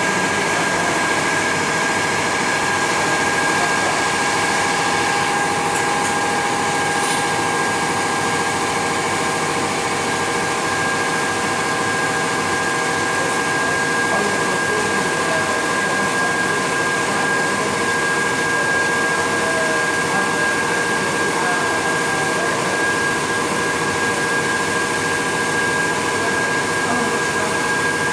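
Shrink-wrap tunnel machine running: its fan motors and conveyor give a steady whirring drone with a fixed high whine that does not change.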